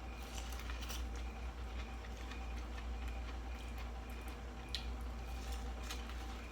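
Eating sounds: a few scattered soft clicks and smacks from chewing and handling food, over a steady low electrical hum.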